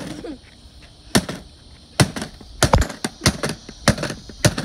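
Hammer blows striking a locked black case with metal trim, trying to break it open: a run of about eight sharp knocks at uneven spacing, several coming quickly one after another around the middle.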